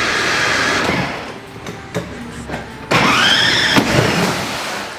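Electric motors of a Grave Digger ride-on toy monster truck whining as it drives, rising in pitch and then holding. The whine eases off about a second in and rises again about three seconds in, with a few knocks in between.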